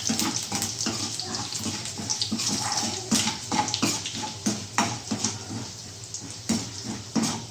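Garlic frying in hot oil in a kadai: a steady sizzle with frequent irregular crackles and pops.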